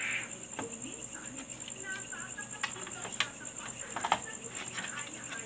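Scattered clicks and knocks of a CRT TV circuit board being handled and pulled from the chassis, over a steady high whine.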